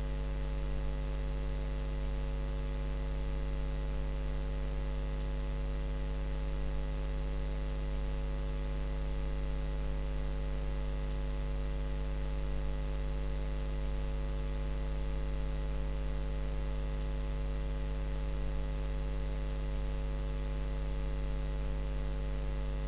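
Steady electrical mains hum with a buzz of evenly spaced overtones, unchanging throughout, with nothing else heard.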